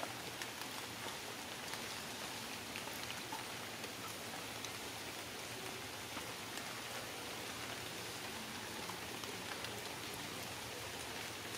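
Steady rain hiss with scattered faint drop ticks.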